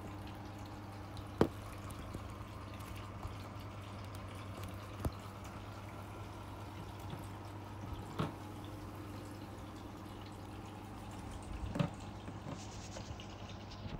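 Pet water fountain trickling over a steady low pump hum, with four short sharp ticks spread through it, the first the loudest.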